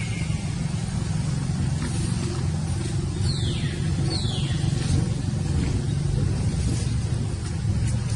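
A steady low engine-like rumble throughout, with two short high squeaks that fall in pitch about three and four seconds in.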